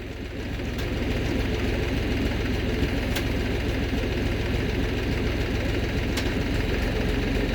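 Heavy diesel engine running steadily, growing a little louder in the first second, with a few faint ticks over it.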